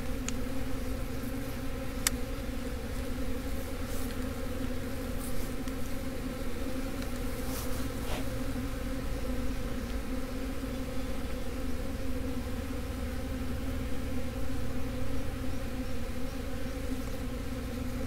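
A swarm of honey bees (Apis mellifera) hanging in a cluster on a branch, giving a steady, dense buzzing hum.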